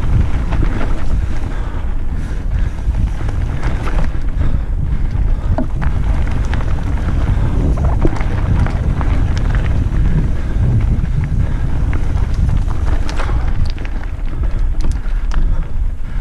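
Wind buffeting the microphone on a fast mountain bike descent down a stony forest trail, a steady low rumble with scattered clicks and rattles from the tyres and bike over the gravel.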